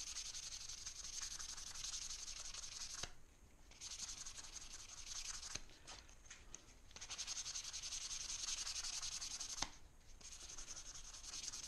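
Fine emery paper rubbed by hand over an aluminium badge: a steady high hiss of quick sanding strokes, with short pauses about three seconds in and again near the end.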